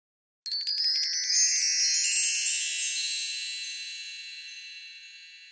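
A magic sparkle chime sound effect: a quick shimmer of high, bell-like tones that starts about half a second in, then rings on and slowly fades away.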